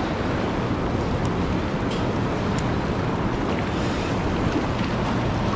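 Steady rushing noise of wind buffeting the microphone over moving river water.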